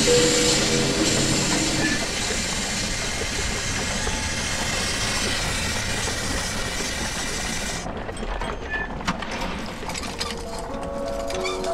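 Film soundtrack sound design: a loud, dense hissing rush with a few held musical notes under it at first. The hiss cuts off suddenly about eight seconds in, leaving scattered sharp ticking clicks, and soft held music notes come in near the end.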